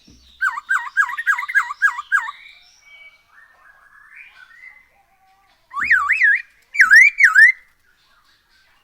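Chinese hwamei singing loud whistled phrases: a quick run of about seven repeated rising-and-falling notes, softer twittering, then a few louder swooping whistles after a pause.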